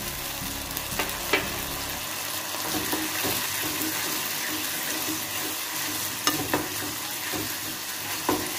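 A thin tomato-sauce masala sizzling in an aluminium kadai as a spatula stirs it, with a few clicks and scrapes of the spatula against the pan. A little water has just gone into the hot oil and sauce.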